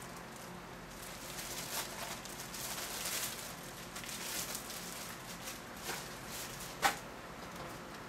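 Plastic packaging bag crinkling and rustling as bagged carpet-cleaner parts are lifted out of a cardboard box, with one sharp knock near the end.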